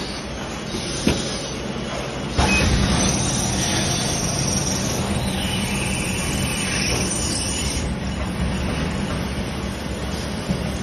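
Special purpose drilling and tapping machine running: a steady mechanical hum with a hiss over it. There is a sharp click about a second in, and the machine gets louder about two and a half seconds in.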